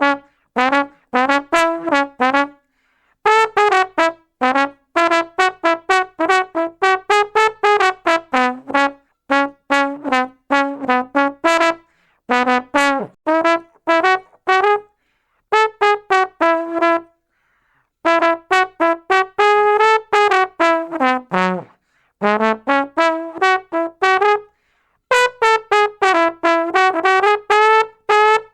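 Brass instrument playing quick runs of short, detached notes in phrases separated by brief pauses, the pitch moving up and down.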